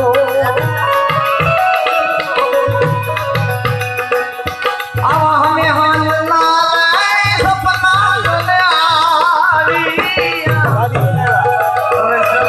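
Gujarati santvani devotional folk music: a drum keeps a steady rhythm under a melodic instrumental line, and a singer's voice comes in about five seconds in.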